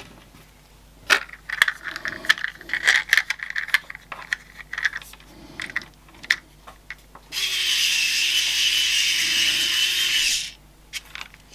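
Small electric screwdriver driving a screw into a plastic 3D-printed part, its motor running steadily for about three seconds before stopping sharply. Before it come scattered clicks and light scraping as the parts are handled and the screw is lined up.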